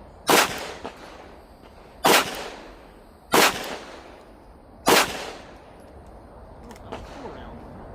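Four shots from an FN 509 Tactical 9mm pistol, fired slowly about a second and a half apart. Each is a sharp crack with a short echo trailing off.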